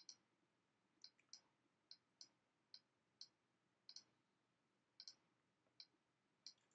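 Faint computer mouse clicks, about fourteen at irregular intervals with several in quick pairs, from pen-tool work in a drawing program.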